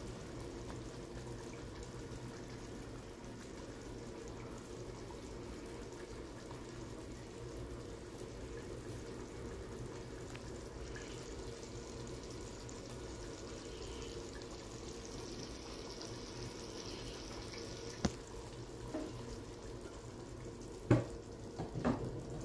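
Mutton dal gosht gravy simmering in a pot on a gas stove: a quiet, steady bubbling and hiss with a low hum. A few short, sharp knocks come near the end.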